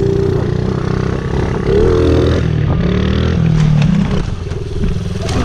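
Honda CRF50 pit bike's small single-cylinder four-stroke engine running and revving up about two seconds in, with a few short knocks in the second half.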